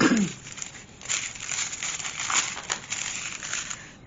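Small plastic bags of diamond-painting drills crinkling and rustling as they are handled, in irregular bursts, with a short falling hum of voice right at the start.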